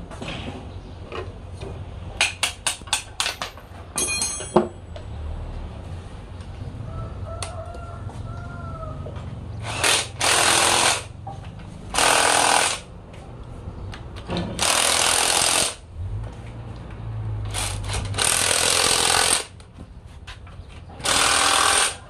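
Cordless impact wrench hammering on bolts of a diesel engine's front housing in five short bursts of about a second each, in the second half. Earlier there is a quick run of metal clicks and a ringing clank.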